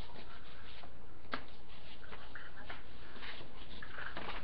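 Paper being handled and folded on a table in short rustles, with one sharp click a little over a second in.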